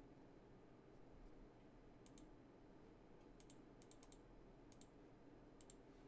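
Near silence with a handful of faint, sharp computer clicks, the first about two seconds in, some in quick pairs.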